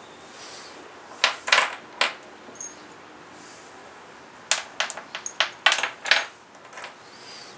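Small steel bolts clinking against each other and against metal as they are handled: a few sharp clinks with a short ring about a second in, then a quick run of clinks from about four and a half to six seconds.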